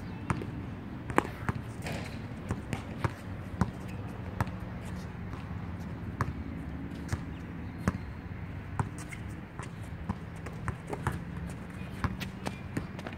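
A basketball dribbled on an outdoor hard court: sharp, irregular bounces about one or two a second over a steady low hum.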